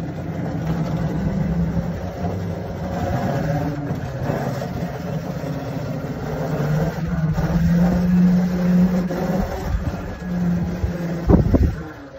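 Half-size electric go-kart driving off over concrete: a steady low hum from its sensored brushless drive motor, rising slightly in pitch as it picks up speed, over tyre rumble. A brief thump near the end.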